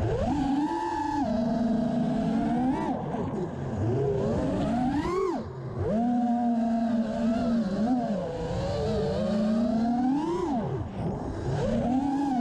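FPV freestyle quadcopter's brushless motors whining, the pitch holding, then dropping and climbing again over and over as the throttle is chopped and punched. Wind rush on the onboard camera rumbles underneath.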